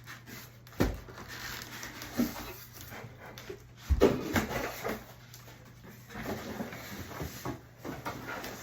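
A dog panting, with two thumps, about a second in and about four seconds in, and rubbing as a mini fridge is worked out of its cardboard box and packing.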